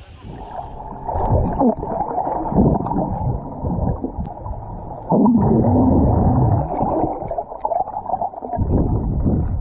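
Muffled sloshing and gurgling of water, dull and low with almost nothing high in it, growing louder about halfway through.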